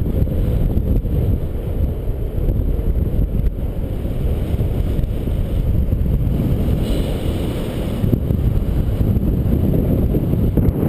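Airflow buffeting the microphone of a camera on a paraglider's risers in flight: a steady, loud low rumble of wind noise.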